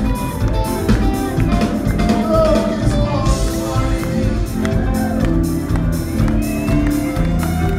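Live rock band playing a song through a concert PA: electric and acoustic guitars, bass, drum kit keeping a steady beat, and keyboards, with a singer's vocal line on top, in a large hall.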